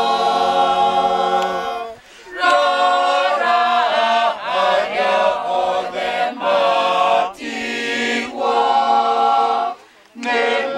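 Mixed group of men's and women's voices singing a Kikuyu Catholic hymn a cappella. The singing comes in long phrases with short breaks for breath about two and ten seconds in.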